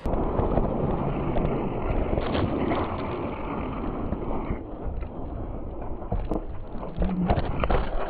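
Skis scraping and sliding over packed snow, heard through a body-worn action camera, with rumbling wind noise on its microphone.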